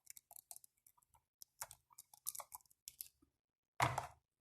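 Hands fitting an infrared sensor module onto a container: a run of small irregular clicks and crackles, with a louder rasping noise near the end.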